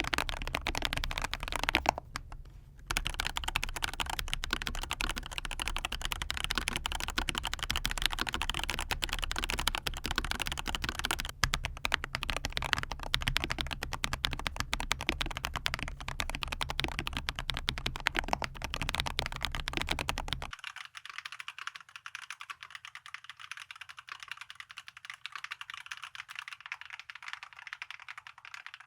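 Fast, continuous typing on a mechanical keyboard with fully lubricated FEKER Matcha Pro tactile switches and PBT cherry-profile keycaps, in a Monstargear Ninja 108 Pro hot-swap board. There is a brief pause about two seconds in. About two-thirds of the way through the sound suddenly turns thinner and quieter, losing its low end, while the typing goes on.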